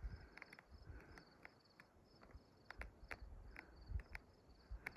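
Near silence: faint outdoor ambience, with a high, rapidly repeating chirp throughout and scattered soft clicks.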